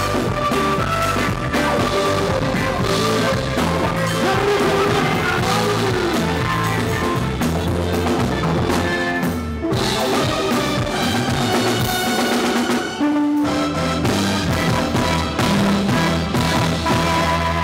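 Live band playing amplified music on stage, with drum kit and bass carrying a steady beat. The music breaks off briefly twice, about ten and thirteen seconds in.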